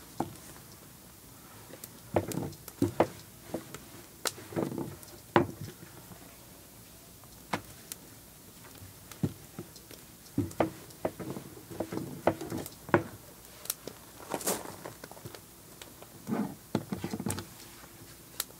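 Wooden rolling pin rolling out tortilla dough on a floured wooden table: irregular knocks and thuds of the pin and hands on the wood.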